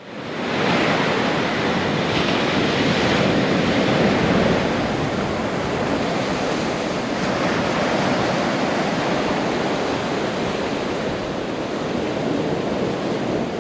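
Steady rushing noise with no distinct events, fading in over the first second.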